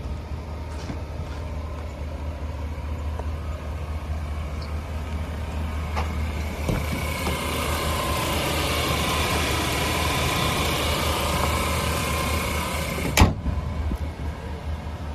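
A 2016 Chevrolet Silverado 2500HD's 6.0L Vortec gas V8 idling steadily, louder in the middle while heard close over the open engine bay. Then a single sharp slam about thirteen seconds in as the hood is shut.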